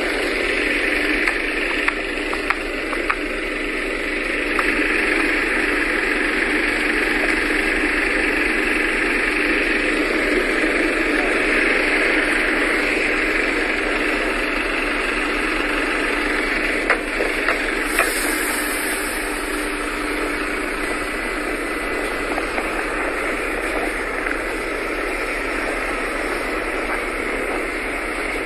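An engine running steadily, with a few brief clicks.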